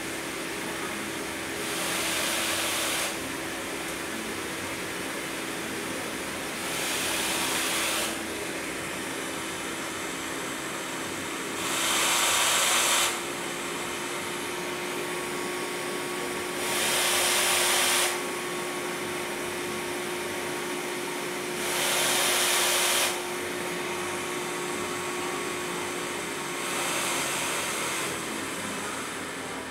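Quantum PSV pressure-support ventilator cycling against a partly taped-over air outlet: a rush of air for about a second and a half every five seconds as it delivers a breath, six in all, over a steady hum.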